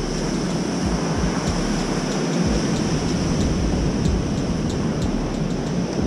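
Surf breaking and washing on a cobble beach: a steady rushing noise, with wind buffeting the microphone in uneven low rumbles.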